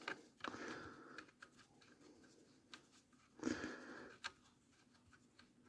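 Faint scraping and small clicks of a screwdriver turning screws in an airsoft electric rifle's body, in two short bouts.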